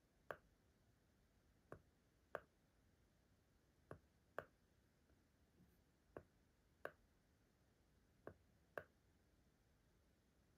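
Faint plastic clicks of the buttons on an IKEA STYRBAR smart remote being pressed, coming in pairs about half a second apart, roughly every two seconds, while the remote dims a TRADFRI LED bulb.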